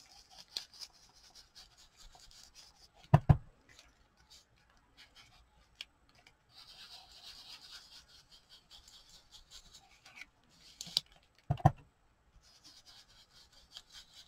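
Foam ink blending tool scrubbing over paper, a soft scratchy rubbing that comes and goes, with a few sharp knocks about three seconds in and again around eleven seconds.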